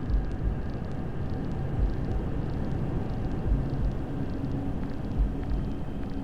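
Recorded heartbeat sounds: a low double thump, lub-dub, about every second and a half to two seconds, over steady rumbling white noise with a faint hum.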